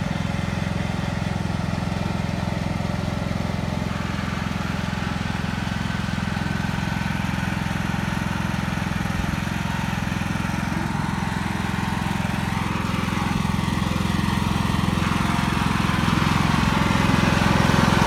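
Lawn mower engine running steadily, growing louder near the end as it comes closer.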